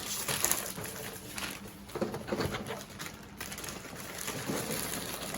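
Plastic packaging and toys rustling and crinkling as they are handled and packed away.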